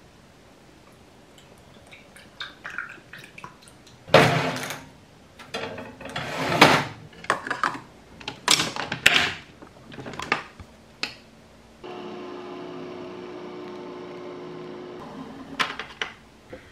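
Handling clatter and knocks from loading a Nespresso Vertuo capsule coffee machine, then the machine running with a steady hum for about three seconds, ending in a click.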